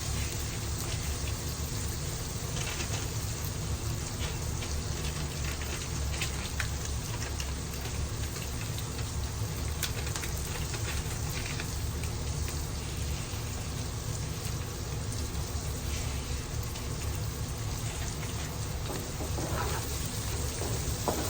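Cabbage and other vegetables sizzling steadily as they fry in oil in a pan, with a few faint clicks from stirring.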